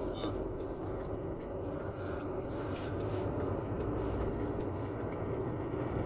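Car driving on a road, heard from inside the cabin: a steady engine hum with tyre and road noise.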